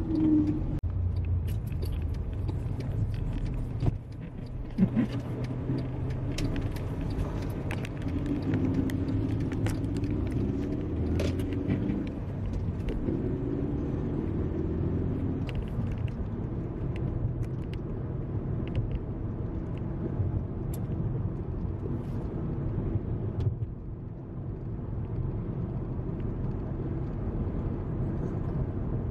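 Car driving on the road, heard from inside the cabin: a steady low rumble of road and engine noise.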